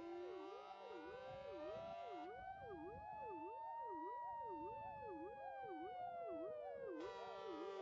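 Several fire engine sirens sounding together in protest: a fast up-and-down yelp about twice a second over a slow wail that rises and falls, with a steady blaring tone that drops out about two seconds in and comes back near the end.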